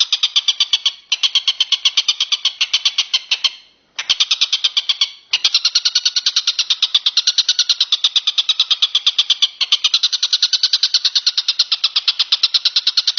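Walang kecek insect calling: a fast, even train of high-pitched rattling pulses, about ten a second, with short breaks about one, four and five seconds in.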